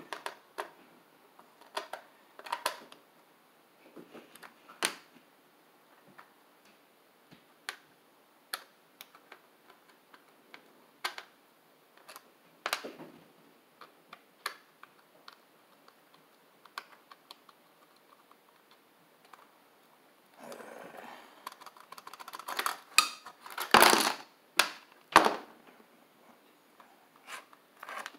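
Circuit boards and a clear acrylic plate being handled and fitted together: irregular hard plastic clicks and taps, busier and loudest about twenty to twenty-five seconds in.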